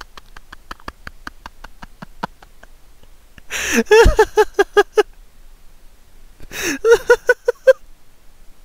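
A young man laughing hard. Faint quick gasping comes first, then two loud bursts of rapid 'ha-ha-ha' laughter, the second a couple of seconds after the first.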